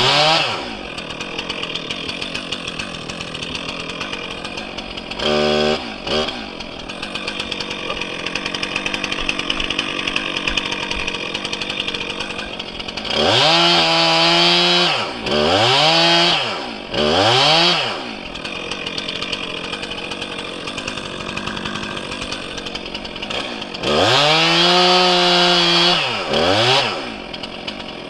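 Small chainsaw with a short bar idling with a rapid, even chatter, and revved to full throttle again and again. Each burst rises in pitch, holds and falls back: once about 5 seconds in, three times in quick succession midway, and two longer runs near the end.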